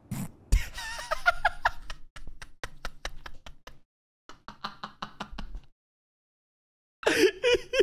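A man laughing hard: a burst of laughter, then runs of rapid breathy wheezing pulses, about five a second, that break off for about a second before loud laughter starts again near the end. A thump about half a second in.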